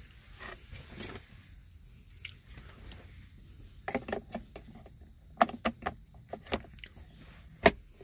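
Sharp plastic clicks and snaps from a Mercedes ML350 center console lid latch being handled and pressed. There is a single click about two seconds in, a quick cluster around halfway, several more after that, and the loudest snap near the end.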